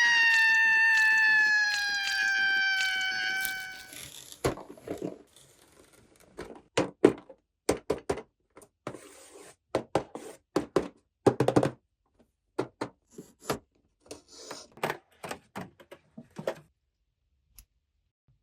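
A held tone with overtones, slowly falling in pitch, fades out about four seconds in. It is followed by irregular clicks and knocks of plastic toy doctor tools being picked up and set down.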